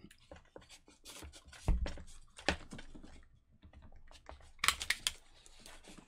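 Irregular clicks, taps and a few soft knocks from small hard objects being handled at a desk.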